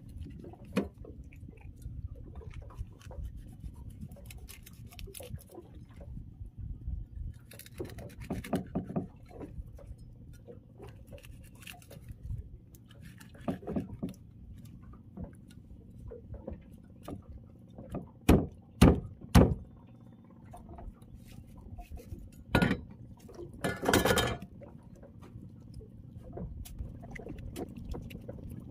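Cleaver scraping the scales off a tilapia on a wooden chopping block, a run of small scrapes and ticks, with several sharp knocks of the blade on the block about two-thirds of the way through.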